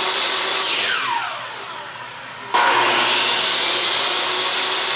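Electric chop saw's motor running free, then released about half a second in and spinning down with a falling whine. About two and a half seconds in it is triggered again, starts abruptly and runs steadily at full speed. It is powered by a battery pack through an inverter that takes the repeated starting surges without trouble.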